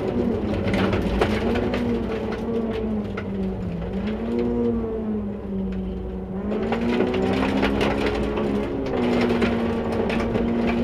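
Rally car engine heard from inside the cabin on a gravel stage, with gravel clattering against the car. The engine note wavers and falls, goes quieter around the middle as the driver lifts off for a chicane, then climbs again under throttle, with a gear change near the end.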